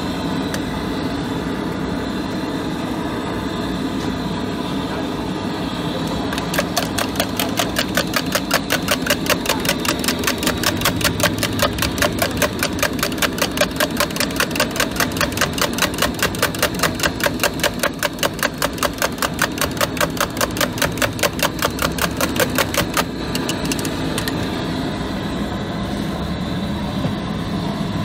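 Eggs being beaten with a plastic spoon in a steel jug: a fast, even clicking of the spoon against the metal, about four to five strokes a second. It starts several seconds in and stops a few seconds before the end, over a steady background noise.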